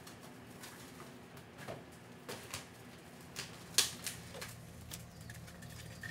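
Food and containers being handled and taken out of a refrigerator: scattered light knocks and clatters, the loudest about four seconds in, over a low steady hum.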